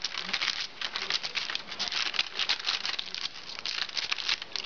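Hands patting and pressing biscuit dough flat on a lined baking sheet: a quick, irregular patter with crinkling of the sheet's lining.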